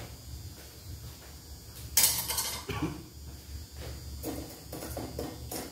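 Metal kitchen utensils and a cooking pot clattering as noodles are handled in boiling water. There is one loud scraping clatter about two seconds in, then a few lighter knocks, over a steady low hum.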